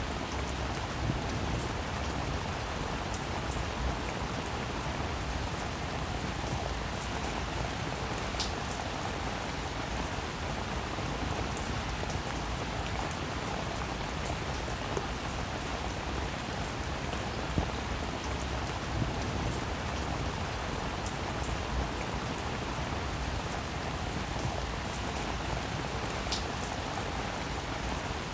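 Steady rain falling, with individual drops pattering on a surface as scattered small ticks over an even hiss.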